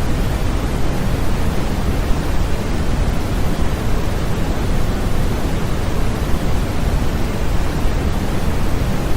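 Steady, unchanging sleep-aid noise for babies, a constant hiss weighted toward the bass like pink noise, with no breaks or changes.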